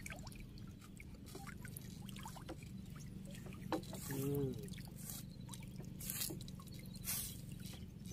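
Water dripping and trickling, with scattered small drops, over a steady low hum.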